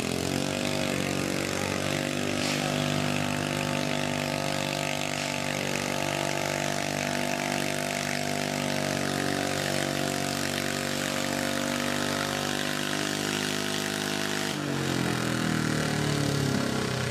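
Modified garden tractor's engine at full throttle pulling a weight-transfer sled: the pitch climbs as it opens up at the start, holds steady at high revs, then falls away near the end as the pull comes to a stop.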